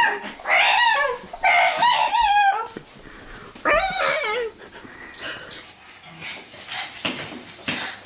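A dog whimpering and whining in four high, wavering cries, then going quiet after about four and a half seconds.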